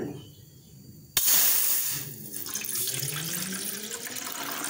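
Water poured from a jug into an empty metal cooking pot. It starts suddenly about a second in and runs steadily, its pitch rising as the pot fills.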